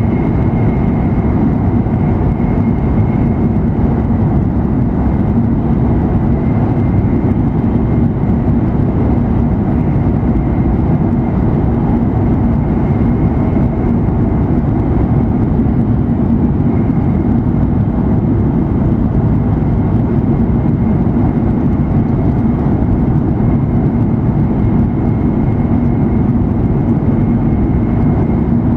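Steady interior running noise of an E7 series Shinkansen car at high speed: a loud, even rumble with a faint, steady high tone above it.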